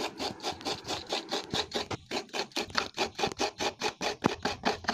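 Fresh coconut flesh being grated by hand from a coconut half: quick rhythmic rasping strokes, about four or five a second, with a brief pause about two seconds in.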